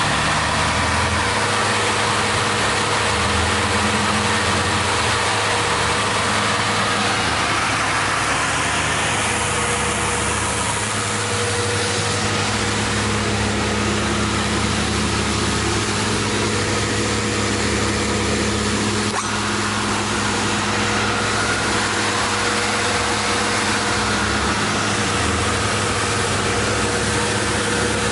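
Ema F121 single-spindle shaper and its 3-roll power feeder running under power: a steady electric-motor hum and whir that holds even throughout, with no knocks or changes in speed, a sound the owner judges to be good.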